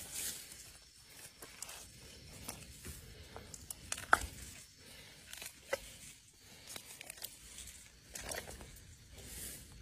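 A hand digging and scraping in wet clay mud at an eel's burrow: irregular squelching and crackling, with scattered sharp clicks, the loudest about four seconds in.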